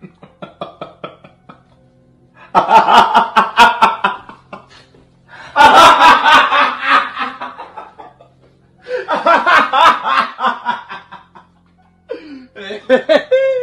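A woman laughing hard in four long bursts of a couple of seconds each, with short pauses between them. The laughter is much louder than her talking around it.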